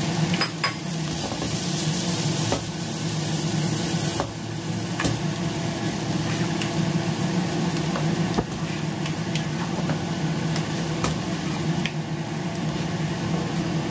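Whole shrimp sizzling in butter with garlic and ginger in a nonstick frying pan, stirred with a spatula that clicks against the pan now and then. A steady low hum runs underneath.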